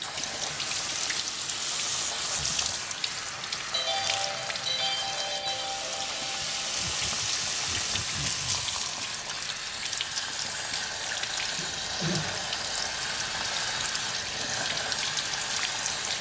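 Water spraying from a sink's pull-out faucet over a man's head and splashing into the basin below, a steady hiss of running water.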